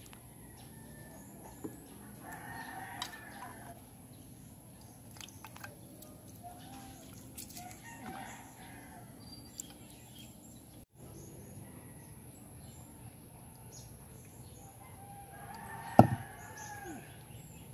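A rooster crowing three times, the middle crow fainter, each crow lasting a second or so. Near the end a single sharp knock, the loudest sound, cuts through the last crow.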